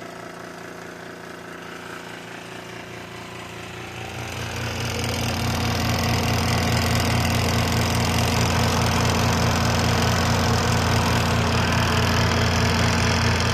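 A portable washing machine's spin dryer starts about four seconds in. Its motor spins up over a couple of seconds to a loud, steady hum with a fast low pulse, wringing water out of the clothes.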